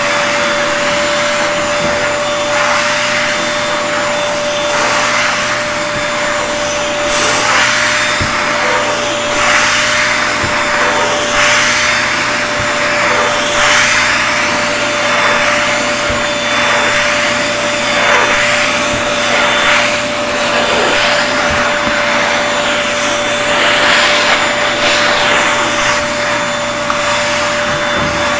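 Vacuum cleaner running with a steady high motor whine, its suction hiss swelling and easing irregularly as the nozzle is worked over surfaces.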